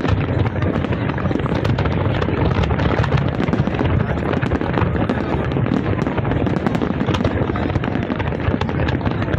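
Dense, continuous fireworks barrage: many overlapping bangs and crackles from aerial shells bursting over a steady low rumble.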